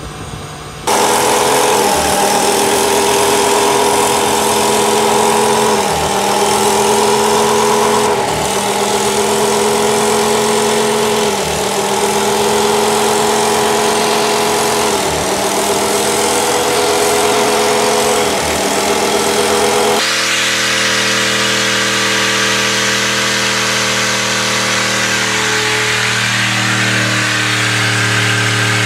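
Truck engines at high revs during tyre-smoking burnouts. First a Ford F-250 Super Duty's Triton V10 is held high, its revs dipping briefly and recovering about every three to four seconds. About two-thirds through it cuts to another pickup's engine at a lower pitch that shifts near the end.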